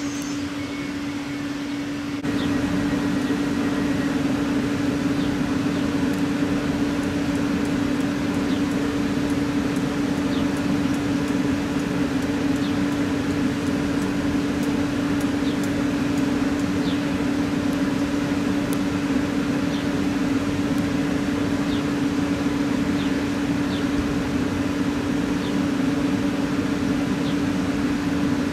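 Trenitalia Pop electric multiple unit (Alstom Coradia Stream) running slowly with a steady electric hum over a wash of noise. Faint short ticks come every second or two.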